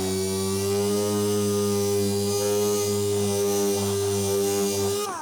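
A power tool's electric motor running at a steady pitch, then spinning down with a falling whine as it is switched off near the end.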